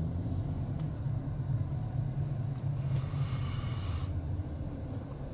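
Car driving, heard from inside the cabin: a steady low engine and road rumble, with a brief hiss about three seconds in.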